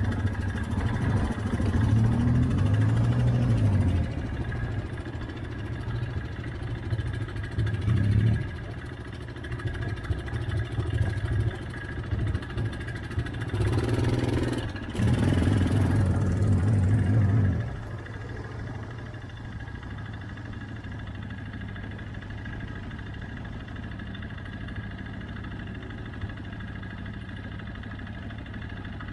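Yamaha Kodiak ATV engine running in shallow water, revving up three times (the longest about two seconds in and again around the middle) and then settling into a steady idle for the last third.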